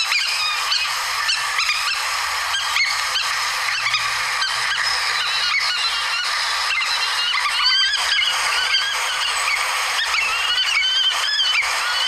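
Field recording of an aplomado falcon calling: a long, irregular series of short repeated notes over steady recording hiss.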